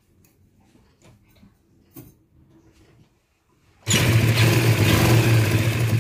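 Sewing machine stitching a seam. After a few quiet seconds with faint fabric handling, it starts suddenly about four seconds in and runs steadily at speed.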